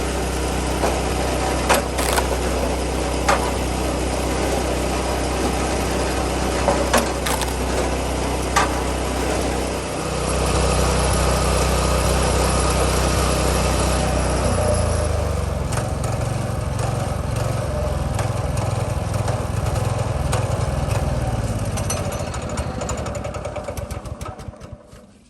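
Small gasoline engine running steadily, with several sharp cracks in the first nine seconds. Its note shifts about ten seconds in and again about fifteen seconds in, then it winds down and stops near the end.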